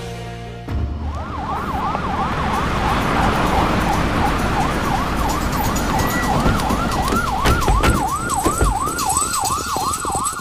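Police siren yelping, a quick rise and fall repeated about two to three times a second, starting just over a second in over a dense rushing noise.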